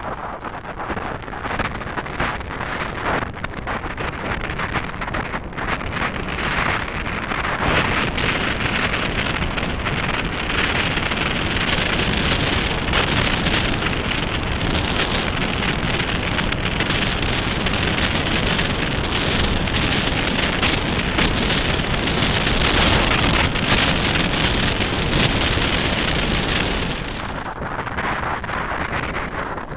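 Mountain bike rolling fast over a gravel track: tyres crunching on loose stones with frequent small knocks and rattles, under heavy wind noise on the microphone. It grows louder about eight seconds in and drops back near the end.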